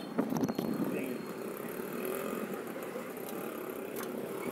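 Street ambience: road traffic running by, with faint voices in the background.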